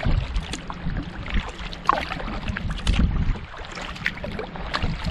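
Double-bladed kayak paddle dipping into the water beside a solo canoe, with repeated stroke splashes and drips about every second.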